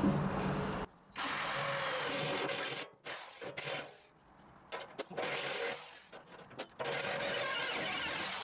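Electric drill with a step drill bit cutting into a stainless steel tank, running in short bursts with brief stops between them. The longest stop comes a little past the middle. The brand-new bit is burning out on the stainless steel.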